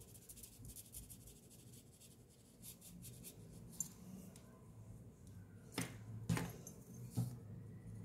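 Quiet room with three soft taps or scrapes in the second half, from a hand and pen being handled and set down on drawing paper.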